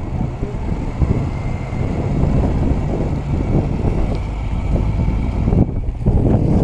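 Jeep Wrangler engine running under load as it pushes through deep, loose snow, with wind buffeting the microphone.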